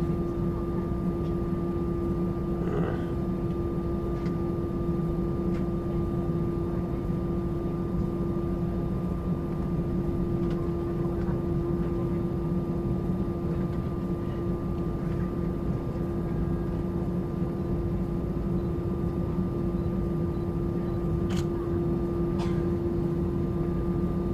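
Steady cabin hum of an Airbus A320-200: one unchanging droning tone over a dense low rumble, with no rise in level.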